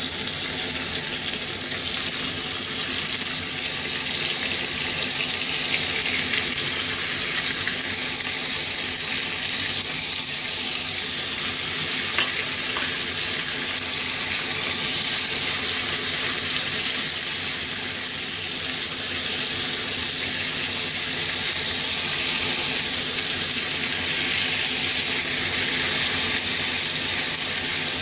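Raw pork slices frying in oil in a frying pan: a steady sizzling hiss that grows a little louder as more slices are laid in.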